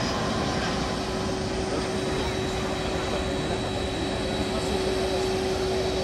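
Jet airliner engines on a landing approach: a steady rush with a held whine over it.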